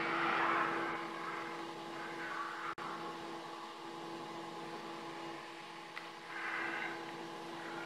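Audio of the viral 'mysterious sounds under the Euphrates River' TikTok clip, played back sped up: a steady hum under a hiss of noise, with short swells of higher noise at the start and about six and a half seconds in. The uploader takes the recording for a hoax.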